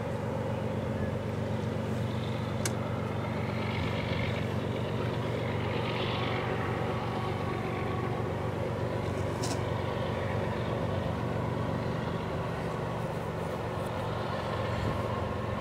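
Two GE diesel-electric freight locomotives, an ES44DC and a C44-9W, approach under power with a steady low engine drone, exhaust smoke showing they are working. A faint steady whine joins about six seconds in.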